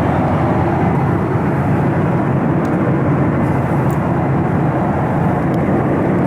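Steady cabin noise of a Boeing 737-900ER in flight: a loud, even rush of its CFM56 jet engines and airflow.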